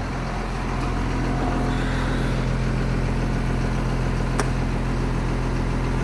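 1996 Blue Bird school bus engine idling steadily while it warms up, heard from inside the driver's area, with a single sharp click about four seconds in.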